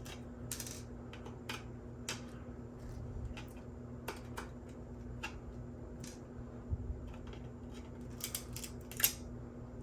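Scattered small crisp snaps and clicks of 3D-printed PLA support material being pried and broken off a printed helmet part. They come every second or so, with a quick cluster near the end and the sharpest snap about nine seconds in, over a steady low hum.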